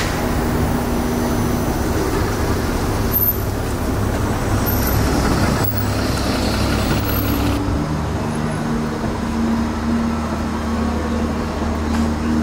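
Street traffic: a steady low rumble of vehicle engines and tyres with a few held engine hums, changing abruptly a few times.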